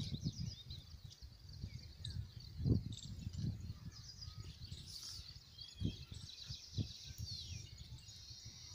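Birds chirping and insects trilling high and thin, with a steadier trill in the second half, over a low rumble broken by a few dull thumps.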